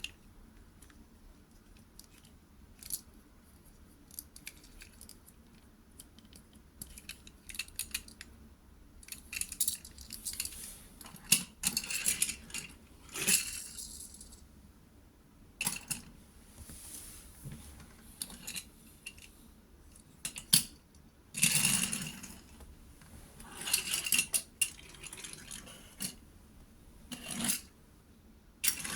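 Hard small toy parts being handled: irregular clicks, clinks and short rattling bursts, coming in clusters with quieter gaps between.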